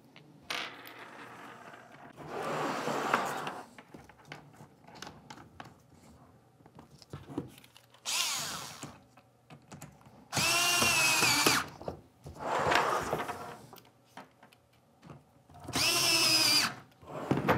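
Small cordless power screwdriver driving screws into a plastic kayak-seat frame. It runs in several short bursts of motor whine with pauses between, the longest about a second and a half in the middle. Light clicks of handling and fitting parts fill the gaps.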